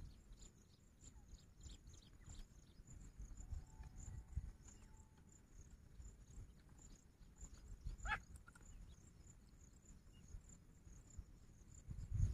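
Grey francolin giving a single short call about eight seconds in, over steady high-pitched insect chirping and scattered low rumbles.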